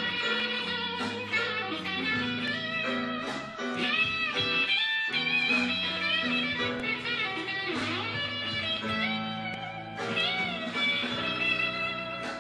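Electric guitar, a Fender Stratocaster, playing a blues solo: quick picked phrases with several bent notes over held low notes.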